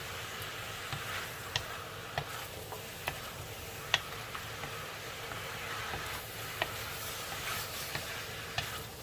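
Chicken wings sizzling in hot oil as they are sautéed and stirred, a steady hiss with scattered sharp clacks of the utensil against the pan.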